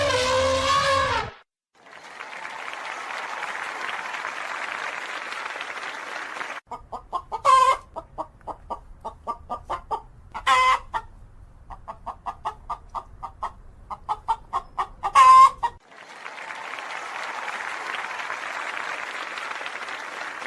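Chickens clucking in a quick run of short notes, broken by three louder drawn-out squawks. Before and after the clucking comes a steady rushing noise lasting several seconds.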